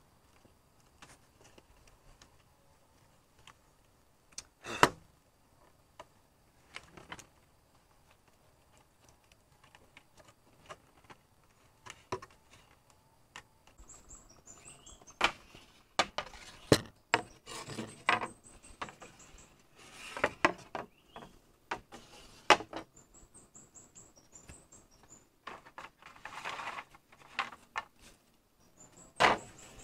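Scattered knocks, taps and clicks of hand work, irregular and sometimes sharp, with a longer rustle about two-thirds of the way through. In the second half a bird chirps in short runs of quick high notes.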